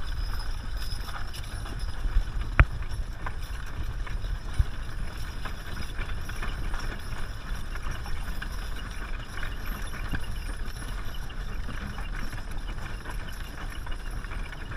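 Hooves of a six-horse Percheron hitch clopping on dry dirt as the team pulls a wagon, over a steady low rumble. A single sharp knock comes about two and a half seconds in.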